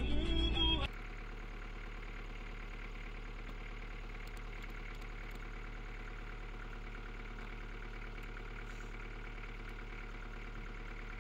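Music cuts off about a second in, giving way to a steady, even hum with a constant low tone that does not change.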